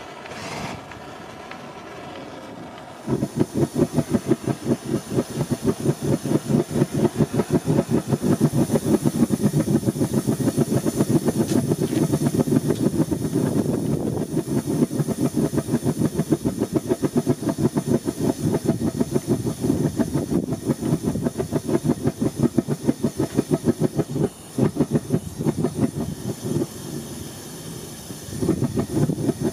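Homemade black-pipe propane forge burner catching about three seconds in, then burning with a rapid, regular huffing pulse over a gas hiss. The huffing is due to improper fuel/air mixing. The pulsing drops back for a few seconds near the end, then picks up again.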